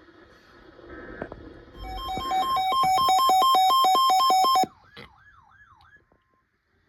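Electronic emergency alert tone: a loud two-tone beep pulsing rapidly, about five times a second, for roughly three seconds. It cuts off and a brief warbling tone fades away.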